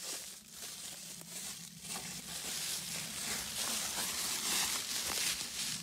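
Footsteps crunching and rustling through a thick layer of dry fallen leaves, many small crackles, getting louder toward the end.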